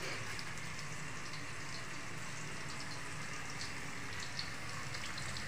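Food cooking in a pot on the stove: a steady low hiss with faint scattered crackles.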